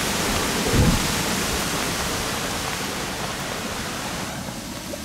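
Heavy rain falling on choppy lake water in a strong wind, a steady hiss with the wind buffeting the microphone. One hard gust about a second in; the hiss eases near the end.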